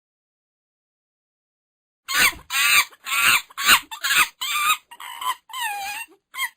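Monkey calling: a quick series of about ten loud, short calls, each with a wavering pitch, at roughly two a second. The calls begin about two seconds in, after silence.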